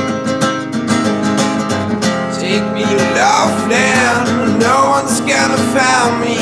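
Background song with strummed acoustic guitar; a singing voice comes in about two and a half seconds in.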